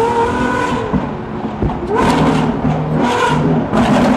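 Lamborghini Aventador SVJ's V12 through an aftermarket Gintani exhaust, revving hard under acceleration: loud, the pitch rising, with two sharp bangs about one and almost two seconds in, then uneven pulsing revs.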